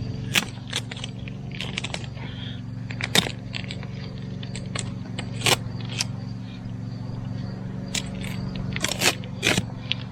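Tape being peeled off a foam backhoe seat repaired with Great Stuff expanding foam, crackling and snapping in scattered short pulls, over a steady low hum.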